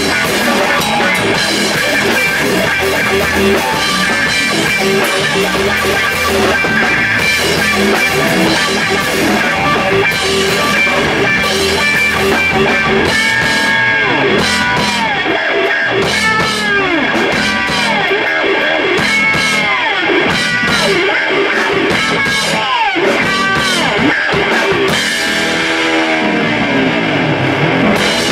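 Rock band playing loud and steady: guitar over a drum kit. From about halfway through, a sound repeatedly swoops down in pitch, again and again.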